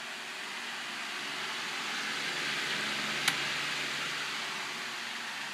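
Lasko Galaxy 16-inch pedestal fan running on high, a steady rush of air that grows louder for a couple of seconds in the middle as the blast reaches the microphone, then eases off. A single sharp click sounds about three seconds in.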